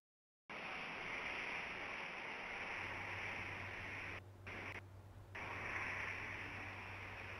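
Steady hiss from an outdoor camera microphone in the rain. A steady low hum joins about three seconds in, and the hiss dips briefly twice near the middle.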